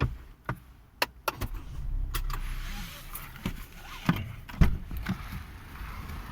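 Scattered clicks and knocks of something being handled inside a car's cabin, with a brief rustle and one heavier thump about four and a half seconds in.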